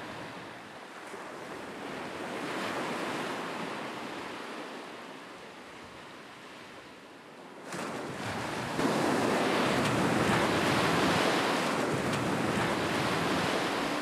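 Sea waves washing onto a shore: a steady rush of surf that swells and ebbs, growing suddenly louder a little before halfway and staying louder after that.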